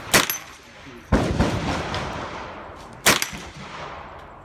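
Three gunshots at a shooting range: sharp cracks about one and two seconds apart, the second trailing off slowly.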